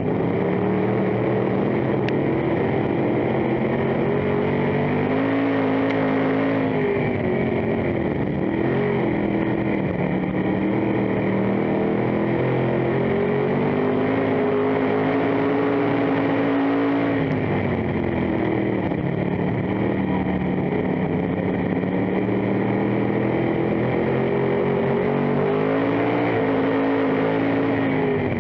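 Dirt-track stock car engine heard from inside the cockpit at racing speed, loud throughout. The revs climb along the straights and drop each time the driver lifts for a turn, about three times.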